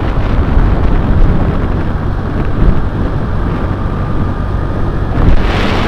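Wind buffeting the microphone over the rumble of a moving motorbike and road, a loud steady rush.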